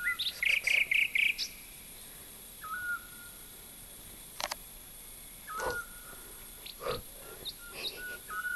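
Small bird chirping. A quick run of about five high chirps comes near the start, then several short whistled calls, each held on one note, with a few sharp clicks in between.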